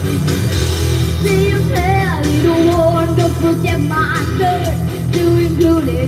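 A girl singing live into a microphone while playing an electric guitar through a small amplifier; her voice comes in about a second in over the steady guitar and low accompaniment.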